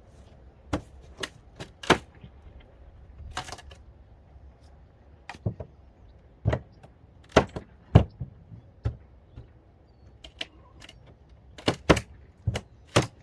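A run of irregular sharp knocks and cracks, about fifteen in all and unevenly spaced, from old wooden wall boards being pried and broken out during demolition.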